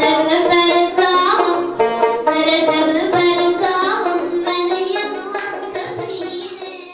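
Long-necked plucked lute playing a melody with sustained notes. The music fades away over the last couple of seconds.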